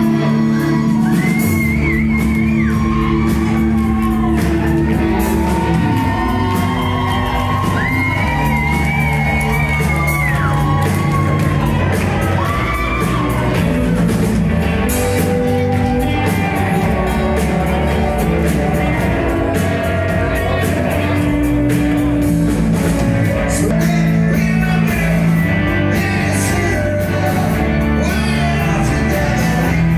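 Live rock band playing with a lead singer, the sound echoing as in a large hall.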